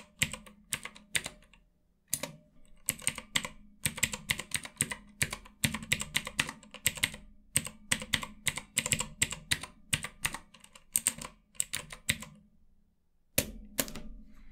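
Mechanical numpad with Outemu Blue clicky switches being typed on: a fast, irregular run of sharp clicks from the keys, with a short pause before two last key presses near the end.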